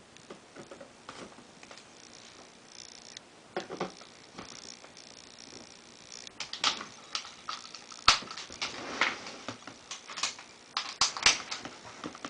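Handling noise from a piano accordion and a pair of pliers on a table: small scattered clicks at first, then from about halfway a busier run of sharp knocks and rubbing as the instrument is moved.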